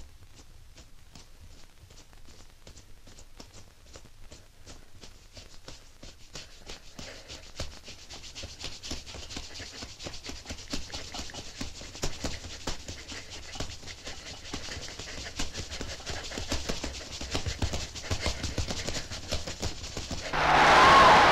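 Dense, irregular clicking and crackling that grows steadily louder and busier, broken near the end by a sudden loud rushing roar with a wavering whistle-like tone in it.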